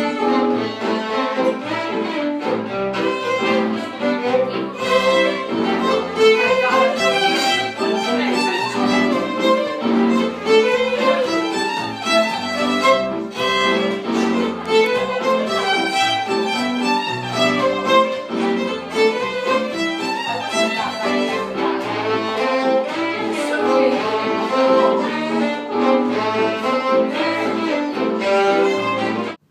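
Background music led by fiddle and other bowed strings, a lively tune of many short notes, ending abruptly.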